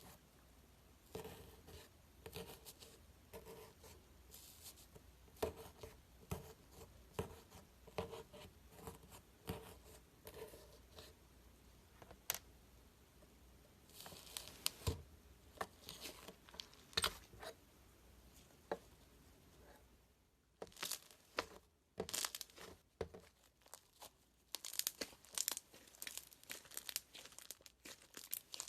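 Slime being squeezed, stretched and poked by hand, giving irregular crackles, pops and sticky tearing sounds. After a short lull about twenty seconds in, the crackling comes thicker.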